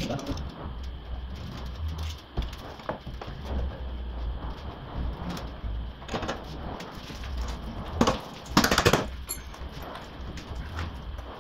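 Hand work on a car's front suspension: scattered knocks and clatter of parts and tools being handled, with louder rattling bursts about six seconds in and again around eight to nine seconds in, over a steady low workshop hum.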